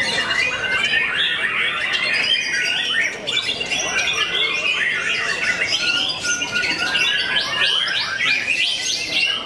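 Several caged white-rumped shamas singing at once: a dense, unbroken tangle of loud whistles, sweeping notes and rapid repeated phrases.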